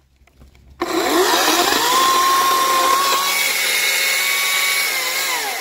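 Ryobi 40V brushless 14-inch cordless battery chainsaw starting up about a second in, its electric whine rising quickly to a steady high pitch, running at full speed, then winding down with falling pitch near the end as the trigger is let go.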